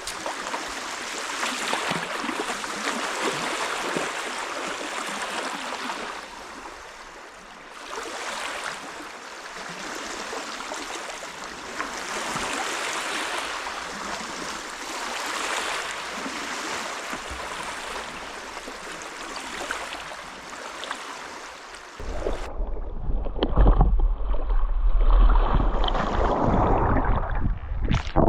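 Water rushing and splashing as a steady, fluctuating noise. About 22 seconds in it changes abruptly to a louder, low rumbling noise.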